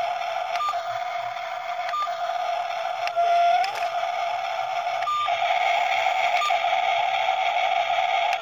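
Small electric motors and plastic gearboxes of a remote-control toy construction vehicle whining steadily, with a few sharp clicks and a short rising whine about three and a half seconds in as the motor speeds up.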